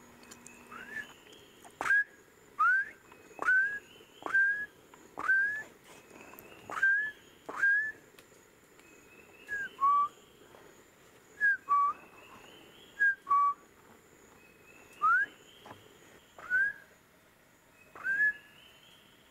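A series of about fourteen short, clear whistles, one every second or two. Each sweeps quickly upward and holds briefly at the top; a few in the middle settle on a lower note. A faint steady high-pitched insect drone runs underneath.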